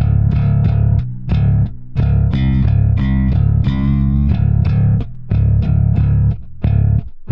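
Background music: a rock track with distorted electric guitar and bass playing rhythmic chords.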